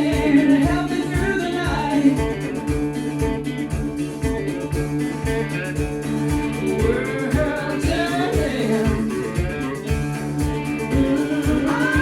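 A song with singing, guitar and a steady bass beat, played back over hi-fi speakers as a sound test.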